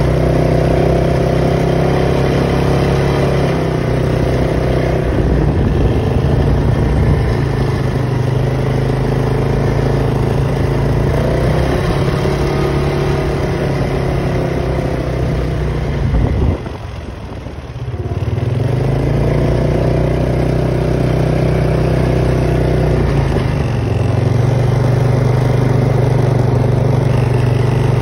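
Polaris Sportsman 570 ATV's single-cylinder engine running under way, its pitch rising and falling with the throttle. A little past halfway the engine note drops away and quietens for about a second and a half, then picks up again.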